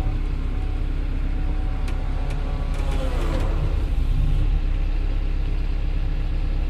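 Kobelco 140 excavator's diesel engine running steadily, heard from inside the operator's cab. About three seconds in, a hydraulic whine falls in pitch, just after two light clicks.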